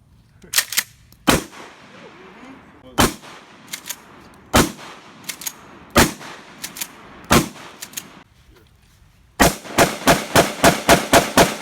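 Gunshots: scattered single and paired shots for the first eight seconds or so, then a rapid string of about four to five shots a second near the end.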